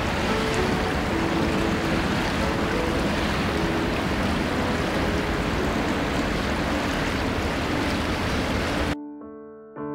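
Creek water rushing steadily, an even hiss-like noise, with soft piano music playing underneath. Near the end the water sound cuts off suddenly and only the piano remains.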